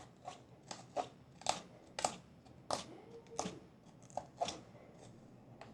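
A hairbrush raked repeatedly through long tangled hair, about ten short rasping strokes roughly two a second, thinning out near the end.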